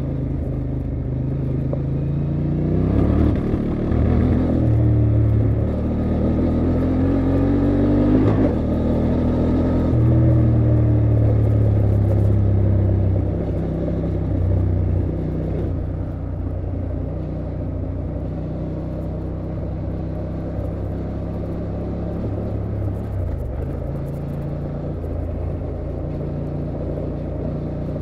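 Honda XL750 Transalp's 755 cc parallel-twin engine accelerating through the gears, its pitch rising twice in the first eight seconds or so. It holds high for a few seconds, then eases off after about thirteen seconds to a lower, steady cruise.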